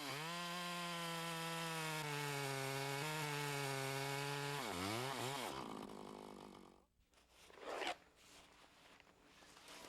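Two-stroke chainsaw running at a steady high pitch under full throttle as it cuts into a tree. Just before the fifth second the engine revs down and up twice, then dies away. A short burst of noise follows about two seconds later.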